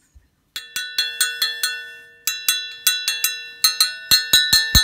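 A Shimano Ultegra SM-RT800 Ice Tech centre-lock disc brake rotor struck again and again while held by its centre, ringing like a bell with each tap. There are about four or five taps a second, with a short pause about two seconds in, and they come quicker and louder near the end.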